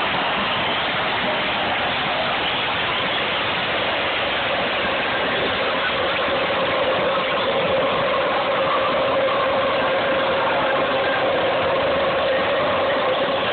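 Large football stadium crowd cheering in celebration, a dense steady roar; about halfway through, a sung chant begins to rise out of the noise as a held, sustained note.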